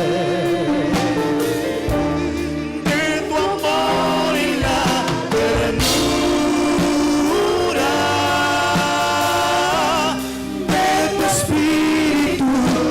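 A Spanish-language Christian worship song being sung, with long held notes and vibrato.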